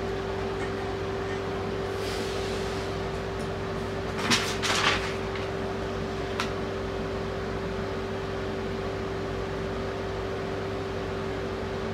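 A steady machine hum with one constant tone, like a small fan, under a few short rustles and clicks of something being handled about four to five seconds in, and one more click a little later.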